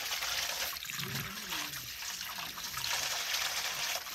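Water trickling steadily over stones.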